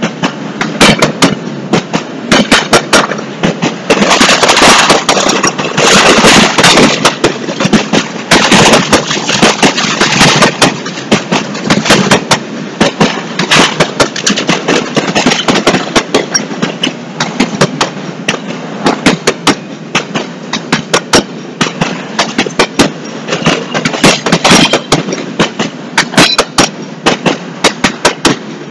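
Norfolk Southern intermodal freight train's well cars rolling past close by: a loud, steady rolling noise with rapid, irregular sharp clacks and bangs of steel wheels on the rails and rattling car parts.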